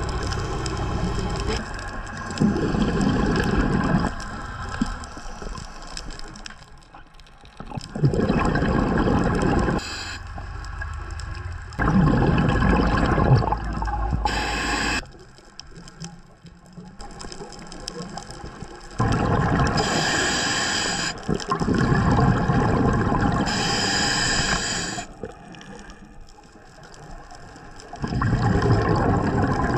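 Scuba diver breathing through a regulator underwater: repeated cycles of a hissing inhale and a rush of exhaled bubbles, each loud stretch lasting a second or two and coming back every few seconds.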